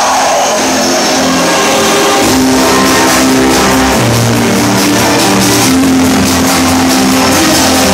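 Electronic dance music from a live DJ set, played loud over a club sound system: sustained synth bass notes that shift pitch every second or two under a steady ticking beat.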